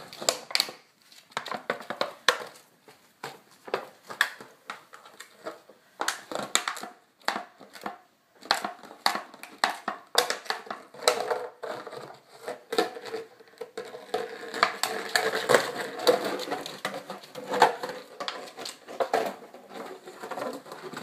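Empty plastic water bottle crinkling and crackling in irregular crunches as a puppy chews it and pushes it across a tile floor, the crackles coming thicker toward the end.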